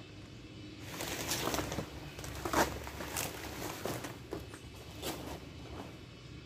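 Hands of bananas being snapped and torn off a cut banana stalk: crackling and rustling with a few sharp snaps, the loudest about two and a half seconds in.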